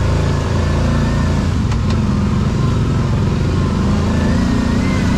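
ATV's V-twin engine running steadily.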